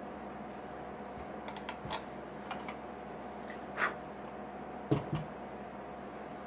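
Black leather oxford shoes handled and set down on a work mat: a few light clicks and taps, then a double knock about five seconds in as a shoe is put down, over a steady background hum.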